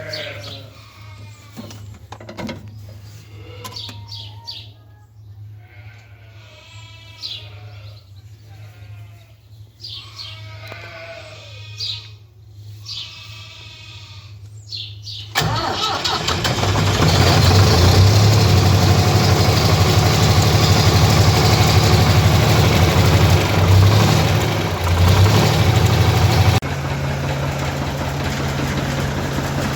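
Ford 4000 tractor engine running at a steady low idle, then suddenly revved hard about halfway through. It holds at high revs for about ten seconds, then drops back to a steady lower run near the end.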